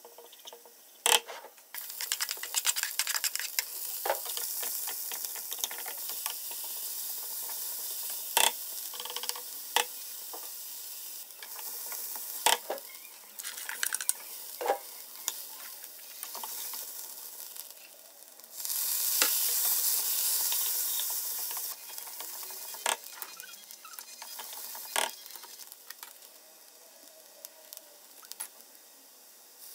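Oil sizzling in a nonstick wok as garlic, vegetables and chicken are stir-fried, with scattered sharp knocks of a wooden spatula against the pan. The sizzle grows louder for about three seconds a little past the middle, then settles back.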